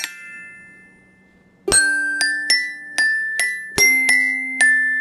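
Glockenspiel played with a mallet: one struck note rings out and fades, then after a short pause a quick melody of ringing metal-bar notes begins, several strikes a second.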